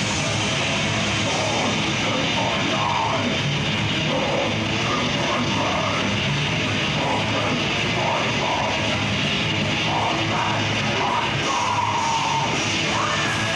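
Death metal band playing live: distorted electric guitar with the full band, loud and dense throughout, with a high note sliding slowly down near the end.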